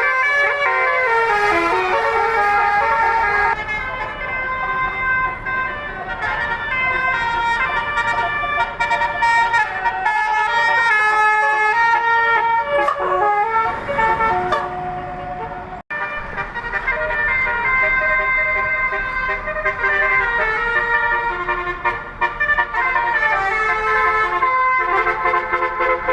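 Tour bus 'telolet' horn, a multi-tone air horn, playing a quick stepping melody of several notes at once. It breaks off for a moment about sixteen seconds in and another horn tune starts.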